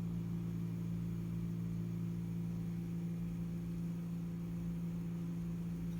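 Steady low hum of an HVAC air-handling unit, with a few fixed low tones and a light airy hiss, heard from inside its mixing box.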